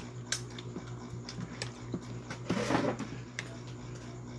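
Eating at a table: light clicks and taps of a spoon and dishes, scattered through, and a short breathy burst a little past halfway, over a steady low hum.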